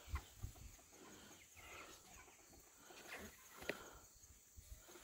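Faint clucking of Cornish cross meat chickens, with a single light knock a little under four seconds in.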